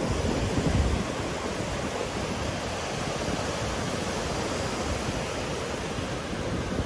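Ocean surf: small waves breaking offshore and washing up a sandy beach, a steady rushing hiss. A brief low rumble comes about a second in.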